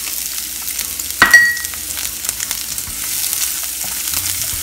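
Diced shallots sizzling as they fry in hot oil and rendered pork fat in a pan, with light crackling and a spatula stirring. A single sharp, ringing clink about a second in.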